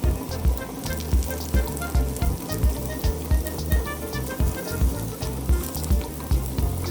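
Zucchini slices frying in a pan of oil, sizzling and crackling steadily, under background music with a steady beat.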